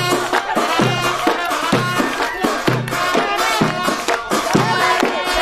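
Middle Eastern folk instrumental music: a sustained, reedy wind-instrument melody over a repeating drum rhythm.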